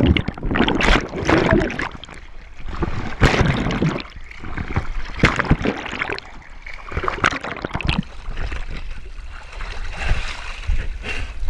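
Water splashing and gurgling around a GoPro camera as it moves at the waterline and goes under, in irregular surges with a few sharper splashes.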